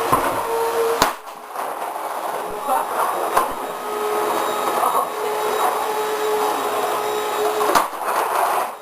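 Vacuum cleaner running with a steady whine over its rushing noise, with a sharp knock about a second in and another near the end.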